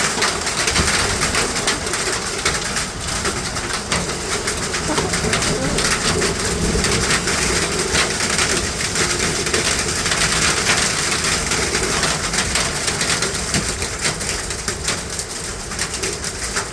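Hail falling hard in a storm: a steady, dense clatter of many small impacts.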